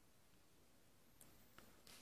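Near silence, with a few faint soft ticks in the second half from a felt-tip pen on workbook paper.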